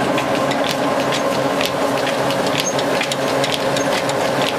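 Old belt-driven wooden rice mill and its drive running steadily: a constant mechanical hum with irregular quick clicks and rattles over it.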